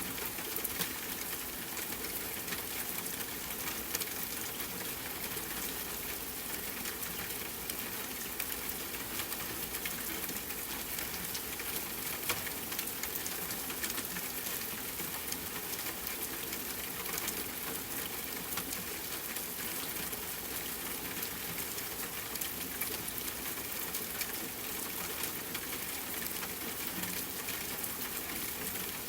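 Steady rainfall with the small, scattered crackles of a wood fire burning in a fireplace.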